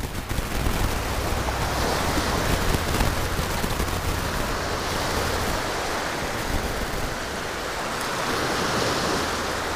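Steady wash of ocean surf breaking and running up a sandy beach, with wind buffeting the microphone.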